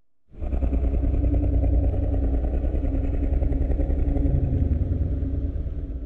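A loud sound effect: a low, engine-like rumble with a fast flutter that starts suddenly just after the beginning, holds steady, and dies away at the end.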